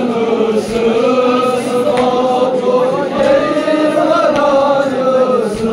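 A group of men chanting a Kashmiri noha, the Muharram lament, together in long, drawn-out sung notes, with a few faint slaps from chest-beating.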